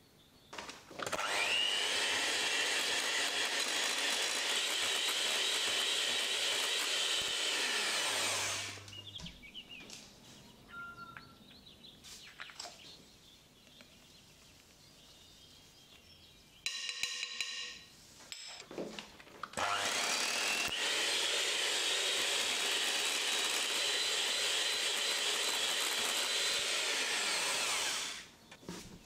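Electric hand mixer with wire beaters running at speed in a glass bowl of cheesecake batter. There are two long runs, of about seven and eight seconds, each starting with a rising whine as the motor spins up and dying away as it stops. Between them come quieter spoon-and-bowl handling sounds.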